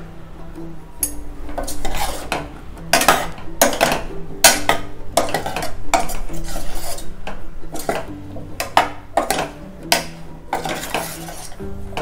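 A metal spoon stirring sliced mushrooms in a stainless steel pot, with repeated clinks and scrapes against the pot as they are mixed into coconut milk and ground spices, over soft background music.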